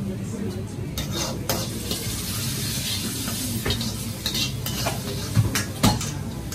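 Vegetables sizzling in a hot wok as they are stir-fried, the metal ladle scraping and clanking against the wok; two louder knocks a little before the end.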